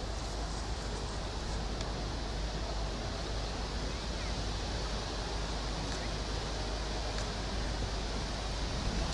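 Steady rushing noise of wind buffeting the microphone, with a low rumble and no clear rise in loudness.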